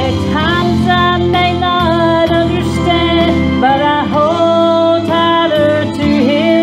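Gospel song playing: a melodic passage between sung lines, with gliding, held melody notes over steady backing instruments.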